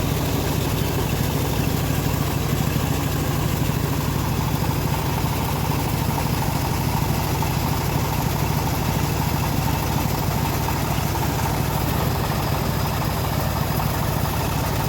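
Band sawmill running with a steady, unbroken drone from its drive; a faint higher whine joins about six seconds in.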